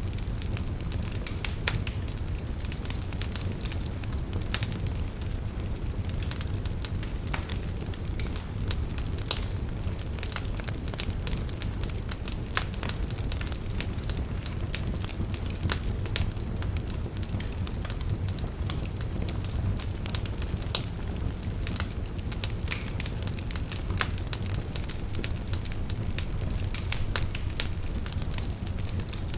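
Wood fire burning, with a steady low rumble of flames and frequent sharp crackles and pops of burning wood scattered throughout.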